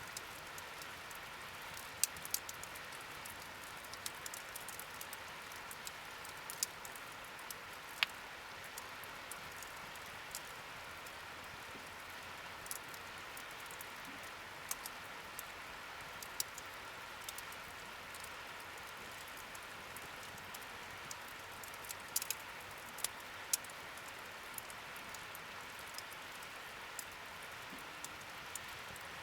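Wood fire burning in a campfire stand: a steady hiss with irregular sharp crackles and pops.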